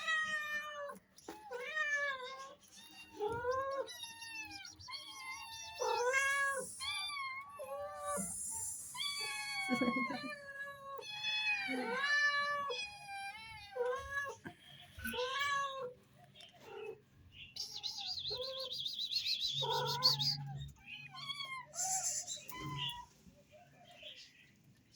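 A cat meowing over and over, a quick run of short calls that rise and fall in pitch, with a few brief hissy sounds in between.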